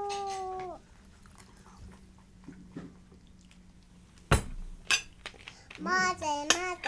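A spoon clinks sharply twice against a small ceramic bowl as a toddler eats. A held vocal note sounds at the start, and a child's wavering sing-song voice comes in near the end.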